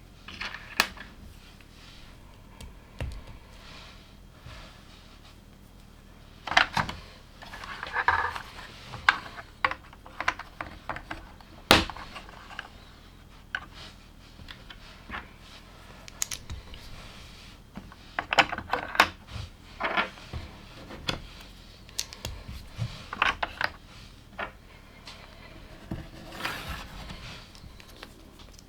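LEGO plastic bricks and pieces being handled and pressed together: a string of sharp, irregular clicks with short bursts of rattling as loose pieces are sorted through.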